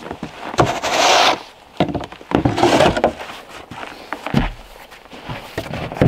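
Boots crunching through snow in a few heavy steps, with scattered knocks and one low thump about four and a half seconds in.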